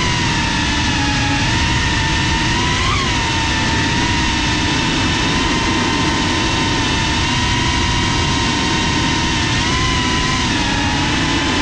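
FPV quadcopter's motors and propellers whining steadily, recorded by the GoPro mounted on the drone, over a constant rush of wind and prop wash. The whine rises briefly in pitch as the motors speed up about three seconds in, and again more gently near the end.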